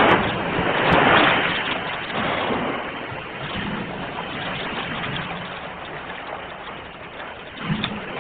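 Sea waves breaking on the shore and washing back. One wave peaks about a second in and slowly fades, and another surge rises near the end.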